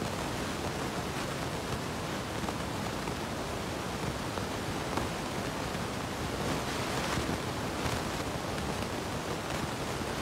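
Steady, even hiss of room noise with no speech or music.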